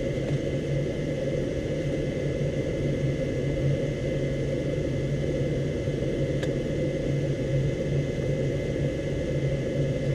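Rheem 80% gas furnace running with its burners lit, a steady low hum and rumble. Two faint clicks, about six seconds in and near the end.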